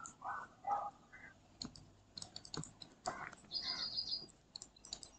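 Soft, scattered clicks and taps of a stylus writing on a pen tablet, with a bird chirping in the background: a quick run of high repeated notes about three and a half seconds in.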